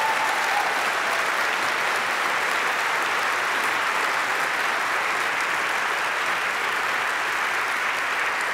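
Large seated audience applauding steadily, a sustained even clapping with no break.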